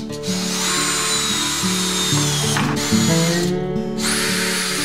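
Makita cordless drill-driver driving screws into a wooden frame, its motor whining in two runs with a short break between, over background music.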